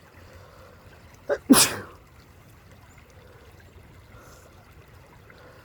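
A person sneezing once about a second and a half in: a short catch of breath, then a sharp 'choo'. It is one sneeze in an allergic sneezing fit brought on by tree pollen.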